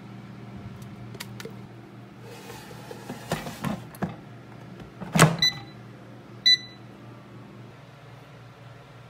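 Air fryer basket pushed back into the machine with a clatter and a loud knock as it seats, followed by two short electronic beeps from its controls about a second apart. A low steady hum runs underneath and drops away near the end.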